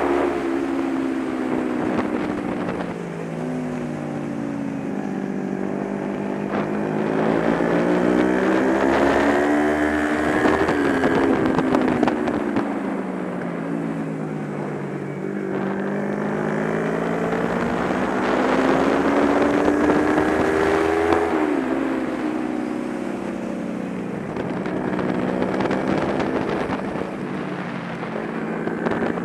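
Kawasaki Ninja 250 parallel-twin sport bike engine heard from on board, its revs swelling up and falling away in long waves as the rider accelerates and rolls off around the track. The revs peak about ten seconds in, climb again to drop sharply about twenty-one seconds in, and rise once more near the end, with steady wind rush underneath.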